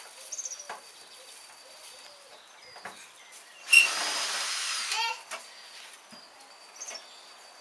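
A cordless drill-driver runs for about a second and a half, backing a screw out of a washing machine's casing, starting with a sharp click. Small clicks and taps of handling parts come before and after it.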